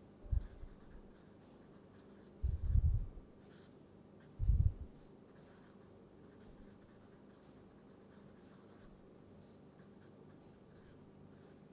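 Felt-tip marker writing on paper, faint scratchy strokes, with a few short dull thumps in the first five seconds.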